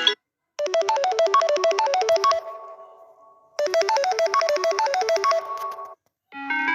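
Mobile phone ringtone: a fast run of short, quickly repeated melodic notes that rings out and then plays again. A different ringtone begins near the end.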